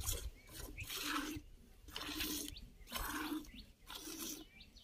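Cow being milked by hand, streams of milk squirting into a steel pot that already holds milk, in regular squirts about one a second.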